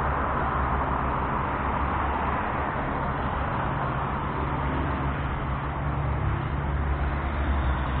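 Road traffic: cars passing on the street, a steady hiss of tyres over a low rumble.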